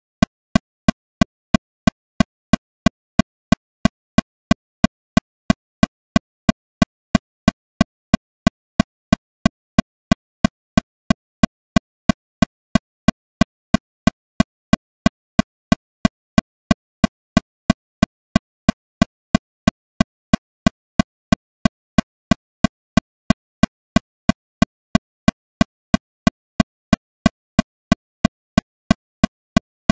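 Metronome clicking steadily at 182 beats per minute, about three short clicks a second with silence between them.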